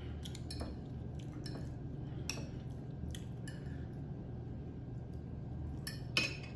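Metal fork clicking and scraping on a ceramic plate as food is picked up, a series of short clinks with the loudest near the end, over a steady low hum.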